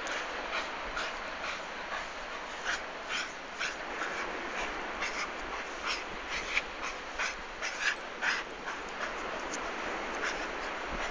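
Staffordshire bull terrier digging in sand: short, irregular scraping and snuffling sounds, a few each second, as she paws and noses into the hole.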